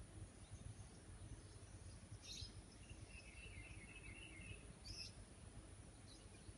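Near silence with faint background noise and a few small bird chirps: brief high chirps about two and five seconds in, and a short twittering run in between.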